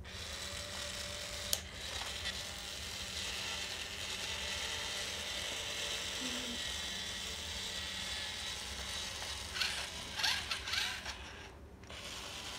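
Toy power drill running with a steady ratcheting whir, pressed against a plastic toy front loader. Near the end it stops, with a few plastic clicks and knocks, then a short lull.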